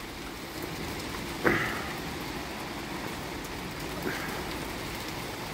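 Steady rain during a night storm, an even hiss, with one short louder sound about a second and a half in.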